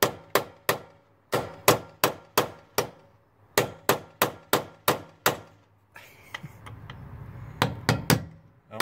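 Hammer tapping a cold chisel set against the head of a one-way security screw in a steel door hinge, sharp metal-on-metal strikes in short runs of about two to three a second, to knock the screw counterclockwise and loosen it. A pause after about six seconds, then three more taps.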